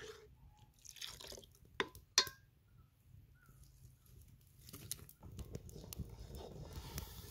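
A metal ladle stirring milk in an aluminium pot, with two sharp clinks about two seconds in as it knocks against the pot. Sticks of firewood are then pushed into the fire, and a small wood fire crackles.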